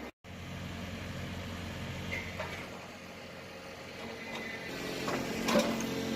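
Mini articulated wheel loader running: a steady engine hum that grows louder about five seconds in, with sharp metallic clanks and knocks near the end.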